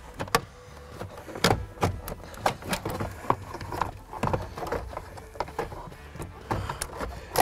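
Plastic instrument cluster housing knocking and scraping against the dashboard as it is laid back into place by hand: an irregular run of light clicks and knocks, one of the sharpest at the very end.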